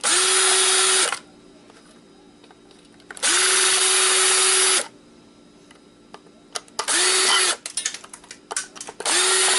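Power drill-driver spinning in four short runs, each winding up quickly to a steady whine, as screws are backed out of an old electronic device; small clicks of handling fall between the runs.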